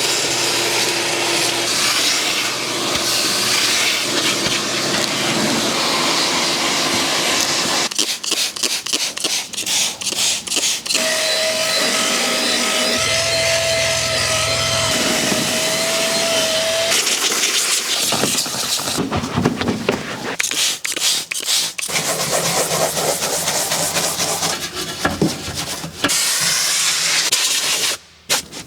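Car interior cleaning in several short cuts: a vacuum running with a steady whine, alternating with fast, rhythmic scrubbing strokes of a brush.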